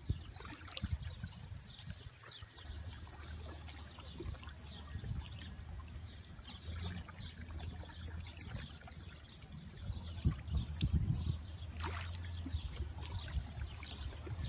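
Small waves lapping and splashing irregularly against the shore, over a low steady rumble. The splashing grows busier about ten seconds in.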